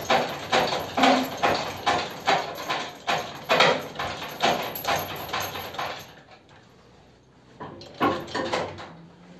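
Metal knocking and rattling, about two knocks a second for six seconds, then a pause and a few more knocks near the end, as the flathead engine hanging on the hoist chains is worked by hand to line it up with the gearbox.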